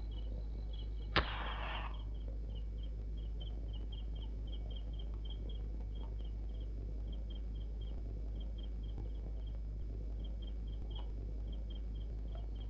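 A sharp crack with a short hiss about a second in, a film sound effect, over crickets chirping steadily. A low hum from the soundtrack runs underneath.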